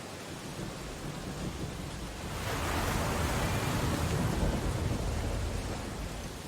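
Steady storm ambience of rain on window glass. A louder surge of storm noise builds about two and a half seconds in, peaks, and fades away near the end.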